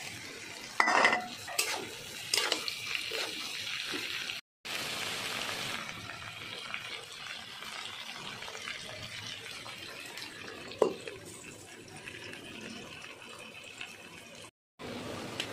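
Okra stir-frying in a wok: a spatula knocks and scrapes against the pan a few times in the first few seconds, then a steady frying sizzle, with one more clank about eleven seconds in.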